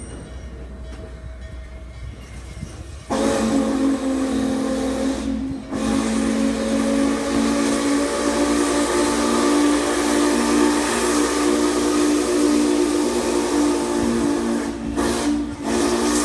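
Steam locomotive's chime whistle blowing long blasts of several notes at once, starting about three seconds in with short breaks after a couple of seconds and near the end, as the train approaches a road crossing. Before the whistle, the low rumble of the coach rolling on the rails.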